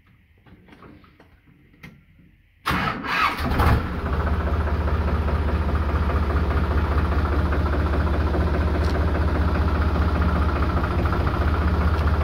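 Diesel tractor engine cranked by its starter and catching about two and a half seconds in, then settling into a steady idle.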